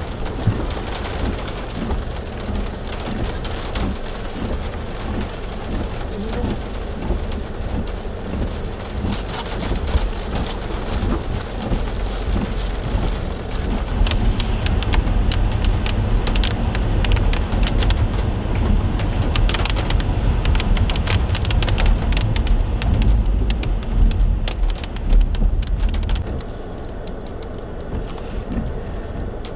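Rain pattering on a car, with a deep low rumble underneath that drops away near the end.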